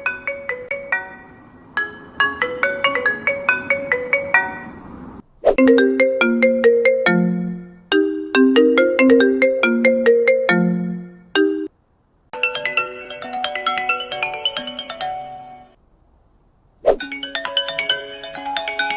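A run of iPhone ringtones played one after another: short, bright, pitched melodies, each looping for a few seconds before a brief silence and the next tone. The ringtone in the middle sits lower and repeats its phrase.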